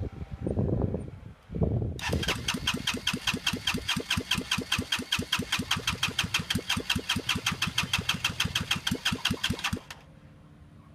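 Honda Elite 250 scooter's single-cylinder four-stroke engine running with a fast, even beat of about ten pulses a second, after two short louder bursts at the start. It cuts off sharply near the end, leaving only a faint low hum.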